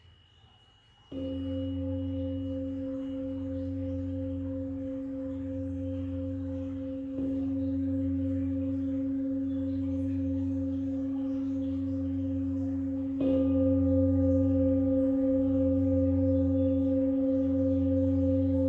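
Large Tibetan singing bowl struck three times with a padded mallet, about six seconds apart, each strike a little louder. Each strike leaves a deep, sustained ringing tone, and its lowest note pulses in a slow wobble.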